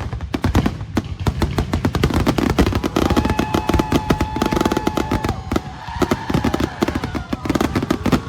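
Aerial fireworks going off in a rapid, unbroken barrage of booms and crackles. A steady high tone is held over the bursts for a couple of seconds in the middle.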